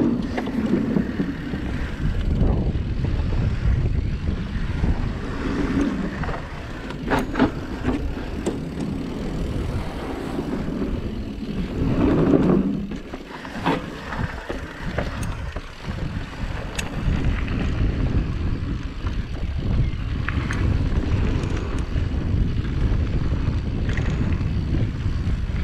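Wind buffeting the action camera's microphone as a YT Capra Uncaged 9 mountain bike rolls downhill, its tyres rumbling over wooden boardwalk planks and later over dirt. Scattered sharp clicks and knocks from the bike over the bumps.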